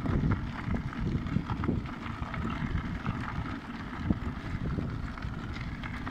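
Wind buffeting the microphone of an electric scooter riding along a park path, with a low rumble and irregular small rattles and knocks as it runs over the bumps.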